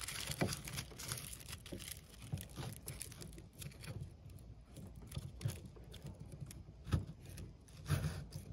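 Aluminum foil wadding crinkling as fingers press it down into a firework mine's tube: faint scattered crackles and small taps, with a sharper click about seven seconds in.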